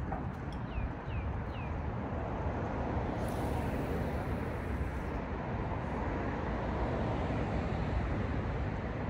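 Steady rushing outdoor noise of distant road traffic, swelling in the middle, with wind rumbling low on the microphone. About a second in, a small bird chirps three times with short falling notes.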